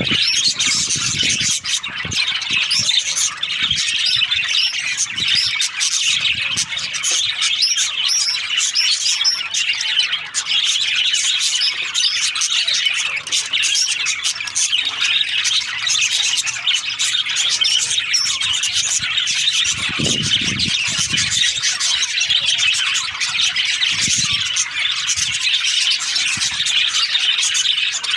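A flock of budgerigars chirping, squawking and chattering continuously, many birds at once in a dense high twitter, with a few dull low knocks in the last third.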